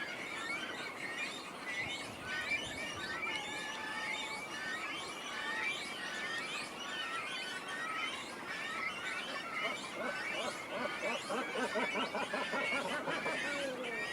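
Great cormorant colony calling: many overlapping short, high calls throughout, joined about ten seconds in by lower, rougher calls.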